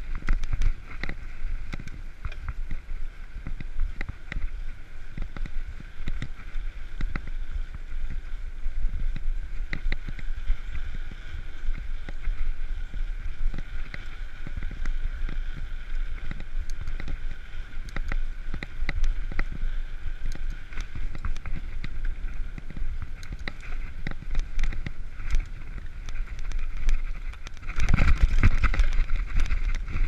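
Mountain bike rolling along a dirt trail: wind noise on the microphone with the bike's rattles and knocks over bumps and a steady high whir under it, and a louder blast of wind rumble near the end.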